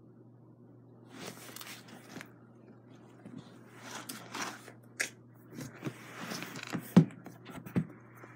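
Intermittent rustling and scraping with several sharp knocks, the loudest knock about seven seconds in.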